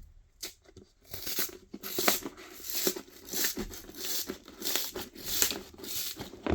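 Packaging of a boxed trading-card collection being torn and crinkled open by hand: a run of quick tearing rasps that starts about a second in.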